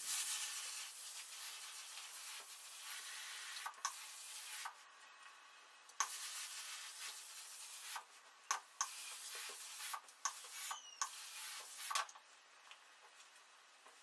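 Steam-generator iron giving off hissing bursts of steam in several spells, the first about four seconds long, mixed with the iron rubbing over a shirt on an ironing board and a few light clicks.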